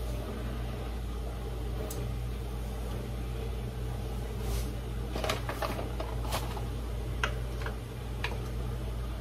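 Granulated sugar emptied from a plastic measuring cup into a plastic mixing bowl: a few light clicks and taps about five to seven seconds in, over a steady low hum.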